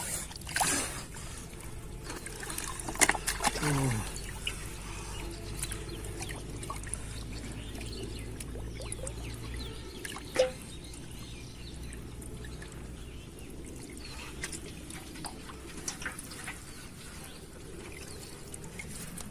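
Water trickling and dribbling, with scattered small clicks and splashes; the sharpest clicks come about three seconds in and about ten seconds in. A short low sound drops in pitch about three and a half seconds in.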